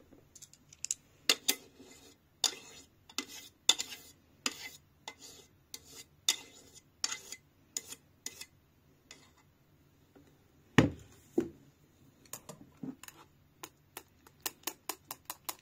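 Stainless steel blender jug clinking and knocking against a ceramic plate as it is tipped and shaken to drain, then a single thud as the jug is set down, about eleven seconds in. Near the end, chopsticks stir in the plate, clicking against the ceramic about five times a second.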